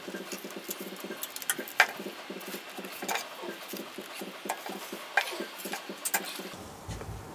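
Click-type torque wrench ratcheting on a cylinder-head bolt: a fast run of small ratchet clicks with about four sharper, louder clicks of metal, the loudest about two seconds in. The head bolts are being re-torqued to 80.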